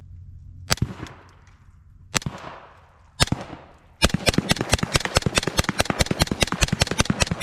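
Integrally suppressed Ruger 10/22 .22 rimfire rifle firing: three single shots about a second apart, then a fast, even string of about two dozen rounds at roughly eight a second.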